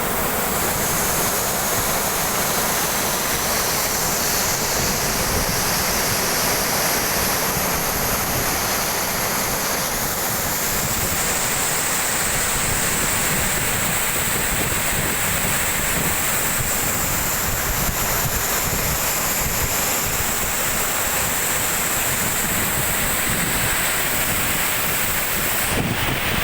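Floodwater rushing through a dam after heavy rain, a steady unbroken rush.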